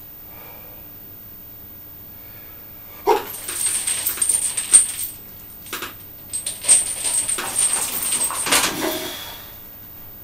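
Steel chains hanging from a loaded bench-press barbell rattling and clinking as the bar is lifted and pressed, in two long clattering spells with a short pause between them.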